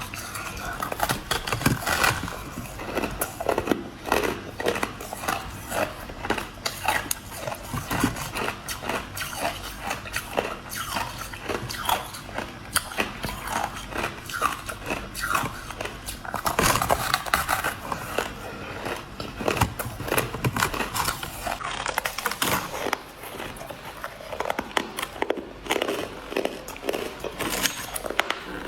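A person chewing a mouthful of crushed ice, with rapid, irregular crunches that go on without pause.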